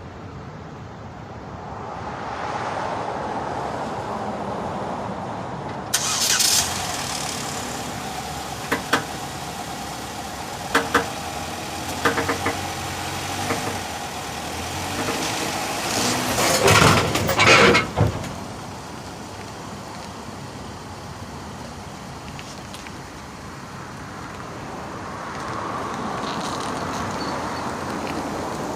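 A vehicle running with a steady hum, broken by several sharp clunks and a loud stretch of clattering about two-thirds of the way through, after which the hum settles quieter.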